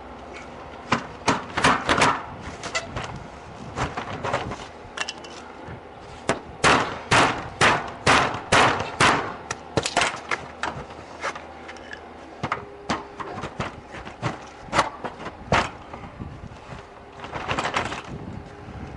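Repeated sharp knocks and blows in runs of several strikes, about two a second at their densest, with the longest run from about six to ten seconds in.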